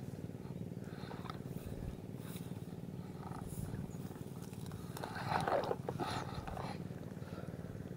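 A small engine running steadily with a low, fast-pulsing drone. About five seconds in, grass rustles briefly as a hand pushes through it.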